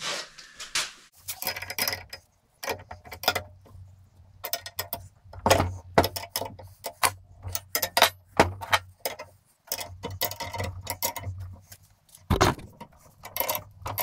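Combination wrenches working the bolts on a steel lawn-mower jack frame: a long, irregular run of sharp metallic clicks and clinks as the tools and hardware knock together.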